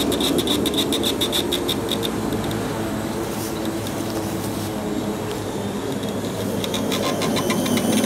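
Old washing machine's series-wound motor, fed through a variac, running and turning the drum, with a rapid even ticking rattle that fades out about two seconds in and comes back near the end.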